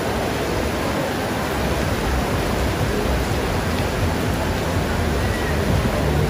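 Heavy rain falling steadily, a continuous even hiss of water.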